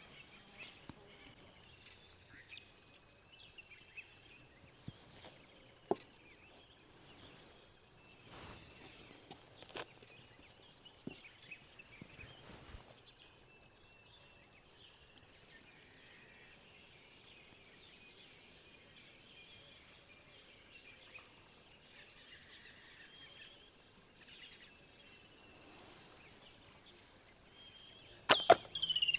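Outdoor ambience: an insect trilling in rapid high pulses that stop and start, with scattered light knocks and taps, and a couple of sharp, much louder knocks near the end.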